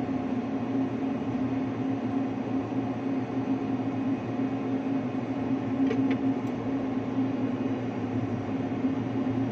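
Steady low hum of shipboard machinery, a constant drone with a held deep tone. Faint light ticks come in about six seconds in.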